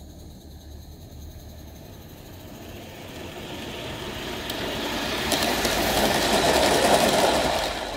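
A 20.3-scale narrow-gauge model train running on 45 mm garden-railway track as it approaches and passes close by, its wheels rattling on the rails. The sound grows steadily louder and is loudest about six to seven seconds in, as the coaches go past.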